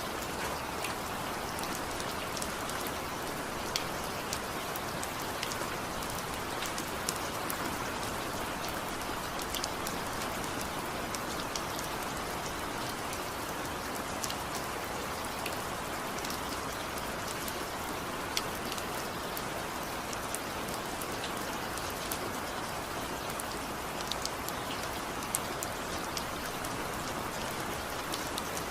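Steady rain falling, an even hiss with scattered sharp drop ticks, and no thunder or music.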